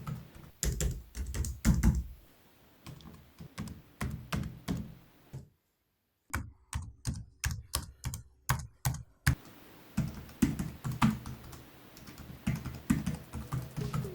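Typing on a Seenda IWG-WJK67 thin-profile keyboard: a string of key clicks, irregular at first, with a brief silent break about halfway, then an even run of about four keystrokes a second, then irregular clicks again.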